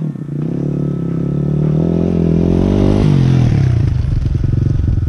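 GR7 250 cc dirt bike engine running under throttle as the bike rides up and passes close by, growing louder to a peak about three seconds in, where its pitch drops. The sound stops suddenly near the end.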